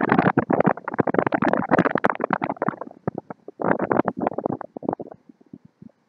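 Wind gusting across the camera's microphone with a rough, crackling rumble. One long gust is followed by a short lull about three seconds in, then a second gust that dies away about five seconds in.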